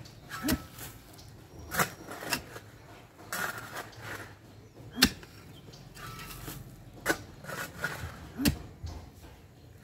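Pickaxe blows striking hard, stony earth at the bottom of a pit, a sharp thud every one to two seconds.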